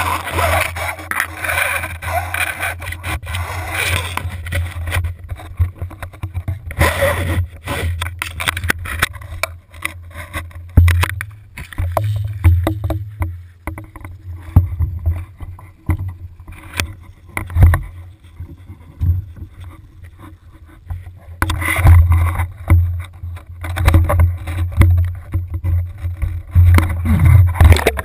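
Lake water sloshing and splashing around an action camera's waterproof housing as it is dipped at the surface and then held under, heard muffled through the housing with a steady low rumble and many small knocks against it. The splashing is loudest at the start, about seven seconds in, and again near the end.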